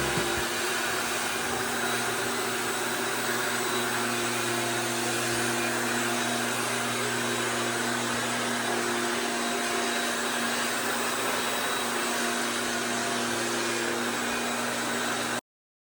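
A small electric motor running steadily with a rushing-air noise and a constant hum, stopping abruptly near the end.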